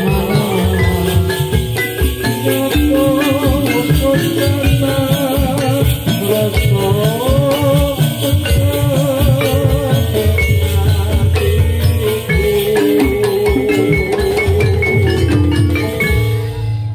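Javanese gamelan-style ensemble music: dense drumming and rattling percussion under ringing metallophone tones, with a wavering melody line above. The higher instruments drop out just before the end, leaving the low drums.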